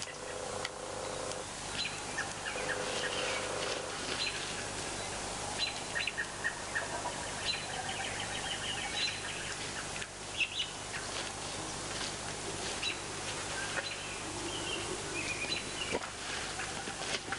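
Small birds chirping in short, high, repeated calls over a steady outdoor hiss.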